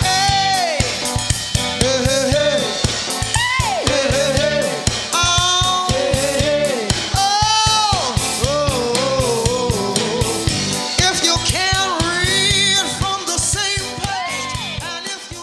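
A woman's voice singing long, bending melodic lines with no clear words over a band with a steady drum kit beat. The music falls away near the end.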